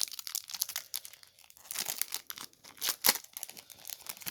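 Wrapper of a trading card pack being torn open and crinkled in the hands: a run of irregular crackles, with one sharper crack about three seconds in.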